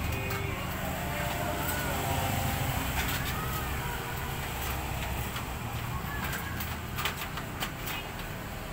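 Steady low workshop background hum with faint, brief chirp-like tones early on, and a few light clicks and taps as the aluminium door frame is handled.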